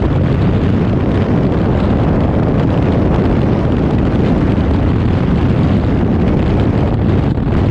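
Loud, steady rush of freefall air buffeting a helmet camera's microphone, an unbroken roar.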